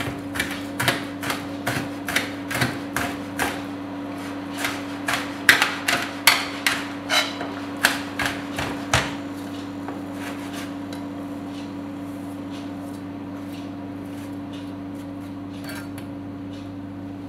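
Chef's knife chopping pork fatback finely on a plastic cutting board: a run of sharp knocks, about two a second, that become fainter and sparser after about nine seconds, over a steady low hum.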